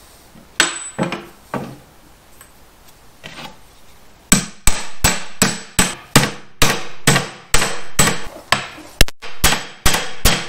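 Hammer blows on a socket driving a new rubber bushing into a Chevy Nova upper control arm: a few spaced blows, then from about four seconds in a steady run of about two to three blows a second, with a metallic ring.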